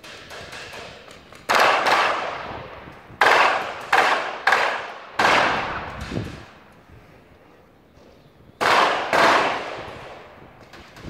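Eight loud, sharp bangs, each with a long echoing tail: a pair about one and a half seconds in, four more in quick succession between about three and five seconds, and another pair near nine seconds.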